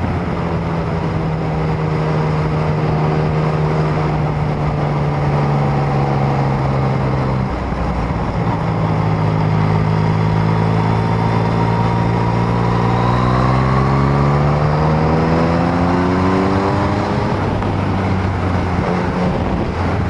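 Yamaha MT-09's three-cylinder engine running under way, with wind rush. Its note drops to a lower pitch about seven seconds in, then climbs steadily for several seconds as the bike accelerates, and settles again near the end.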